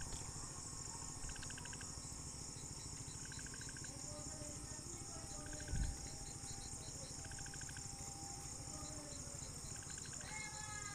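Steady high-pitched chorus of crickets, with short chirping trills that recur every second or so, and one dull thump about six seconds in.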